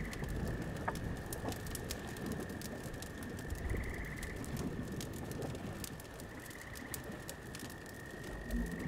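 Wood fire crackling with many small sharp pops over a low rumble of the flames. A steady high tone runs underneath, and a short high trill repeats about every three seconds.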